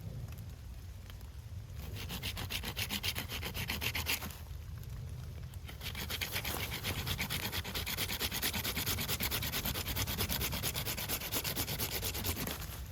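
Folding pruning saw (Bahco 396-HP) cutting through pine fatwood in rapid, even back-and-forth strokes. There are two bouts of sawing, a short one and then a longer one after a brief pause.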